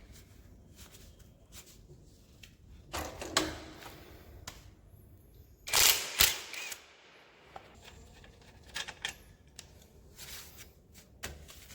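Scattered clicks and knocks of hand tools and parts being handled while working on a motorcycle's drive chain and sprocket, loudest about six seconds in.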